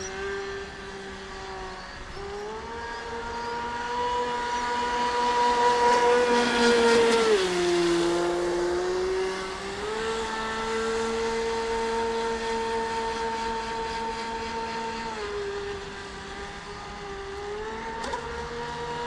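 Scorpion 4035 800 kV brushless outrunner motor in a Proboat Supersonicwake 48 RC speedboat whining at speed on 6S. Its pitch drops about seven to eight seconds in and again near fifteen seconds, then climbs back each time. It is loudest around six to seven seconds in.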